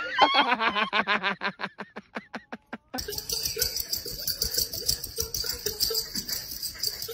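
A person laughing in a quick run of ha-ha bursts that slows and fades out over about three seconds. Then a steady, raspy, rattling hiss starts abruptly.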